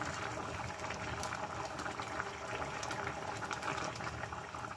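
Thick chicken curry sauce bubbling and popping in the pan as it simmers down to reduce, a steady crackle of many small bursts.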